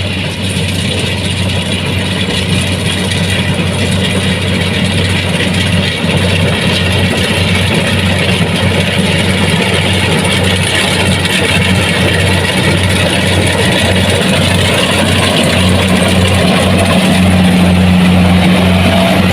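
Kubota DC-70 Plus combine harvester running steadily while harvesting rice: a deep diesel engine drone with a hiss of machinery above it. It grows slightly louder toward the end.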